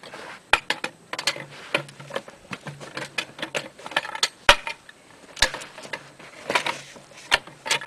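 Irregular metallic clanks and knocks from the steel caster-head rollers of a log turner as their heads are twisted by hand to steer the log.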